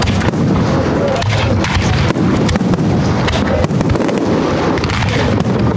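A professional Spanish fireworks display with many aerial shells bursting at once: dense, overlapping bangs and crackling without a break.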